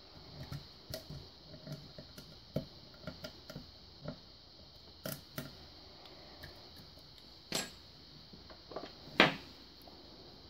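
Lock pick and tension wrench working the pins of a five-pin pin-tumbler lock: a run of small metallic clicks and taps as the pins are probed under heavy tension, with two sharper knocks near the end, the second the loudest.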